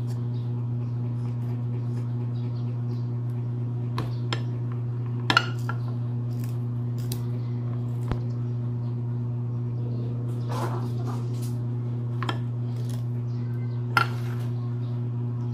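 Metal tools clinking and scraping on a motorcycle front fork tube while working its lock ring loose. Scattered sharp clinks, loudest about five seconds in and near the end, with a brief scrape in between, over a steady low hum.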